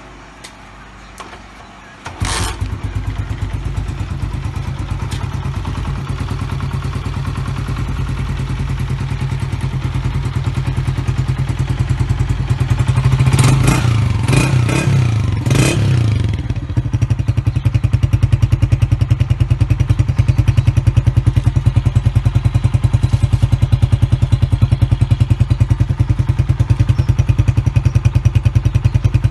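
Honda CG125's single-cylinder four-stroke engine starting about two seconds in and idling with an even beat through an aftermarket AHL-3 KYH silencer. It is revved a few times in the middle, then settles back to a steady idle.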